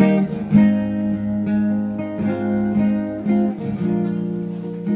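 Live guitar accompaniment with no vocals: chords played and left to ring, a new stroke about every second.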